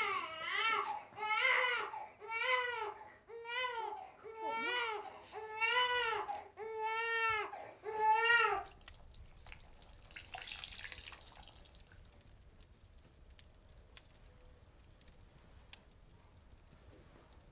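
Infant crying in a steady run of short wails that rise and fall, roughly one a second, stopping suddenly about eight and a half seconds in.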